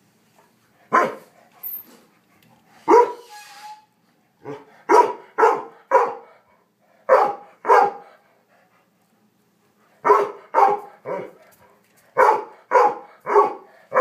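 A dog barking in short, sharp barks, mostly in quick runs of two or three about half a second apart, with pauses of a second or two between runs, during rough play with other dogs.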